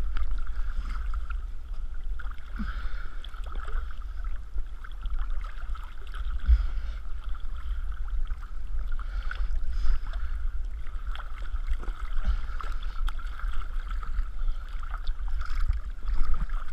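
Lake water lapping and sloshing right at the microphone of a camera held at the water's surface, with small splashes and a steady low rumble.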